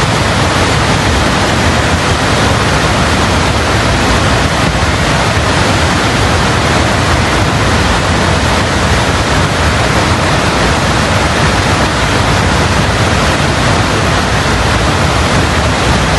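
Floodwater of a river in spate rushing in a loud, steady torrent.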